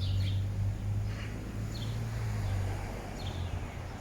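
Street ambience: a steady low hum of traffic with a few short, faint bird chirps.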